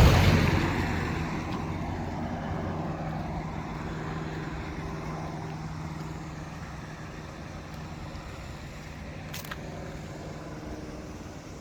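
A motor vehicle's engine: a loud rush that fades over the first two seconds, then a steady low hum, with a single click about nine seconds in.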